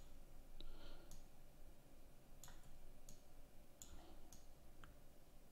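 Faint computer mouse clicks, about six, spread unevenly over a few seconds above low room noise.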